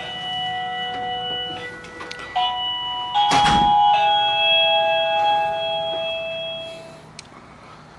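TeckNet wireless doorbell chime playing an electronic melody ringtone: sustained, overlapping notes that step to new pitches about every second and die away about seven seconds in. A brief thump sounds about three seconds in.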